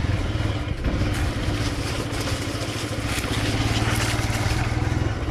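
Motorcycle engine running steadily just after being started, as the bike moves off.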